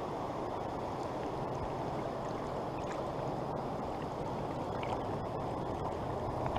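Flowing river water: a low, steady rush of the current with no breaks.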